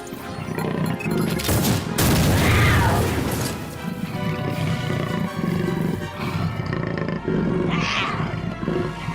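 Classical background music, with a louder swell about two seconds in and a shorter one near the end.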